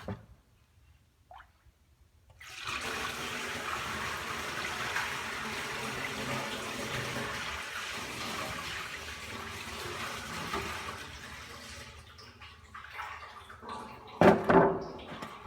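Used engine oil pouring out of a drain pan into a container for disposal: a steady pour that starts a couple of seconds in, lasts about ten seconds and trails off. Two short, louder sounds come near the end.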